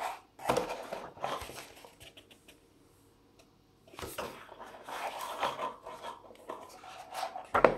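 Paper pages of a softcover adventure booklet rustling as they are flipped by hand, with the booklet shifting against a cardboard box. There is one louder knock near the end.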